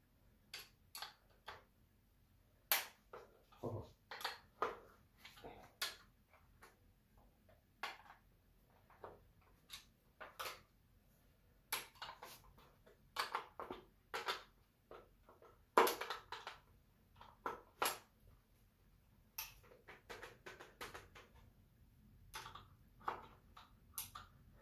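Irregular clicks, clinks and knocks of a wrench and metal bicycle parts being handled and fitted during assembly, some strikes ringing briefly.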